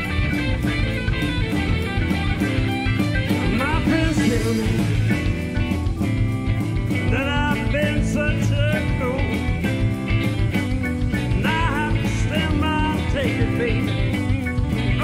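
Live rock band playing a blues-rock number: electric guitars, bass and drums keep a steady beat. A lead line slides and bends between notes in two phrases near the middle and later on.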